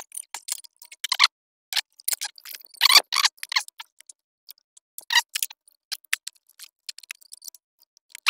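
Irregular metallic clicks and clinks of a Husqvarna 372XP chainsaw's chain and bar being handled and fitted onto the saw, with a few louder rattles about three and five seconds in.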